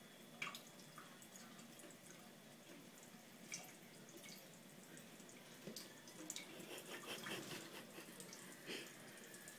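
Faint trickle of a thin stream of tap water falling into a stainless-steel sink, with a few sharp drip-like clicks. From about six seconds in, a run of soft knocks and scuffs as a cat's paws move over the sink and counter.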